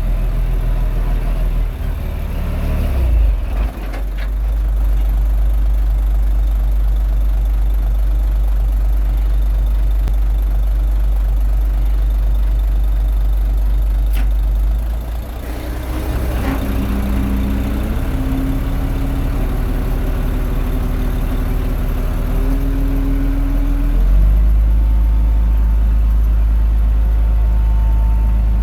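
Komatsu D21A crawler bulldozer's diesel engine running steadily while working, its note changing a few times and getting louder near the end, with a whining tone held for a while in the middle.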